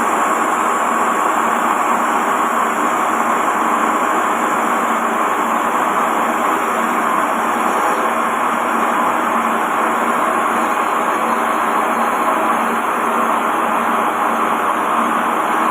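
Lathe running steadily while a hand-fed radius cutting tool turns the groove in a dowel-machine roller, a continuous machining noise with a faint steady hum underneath.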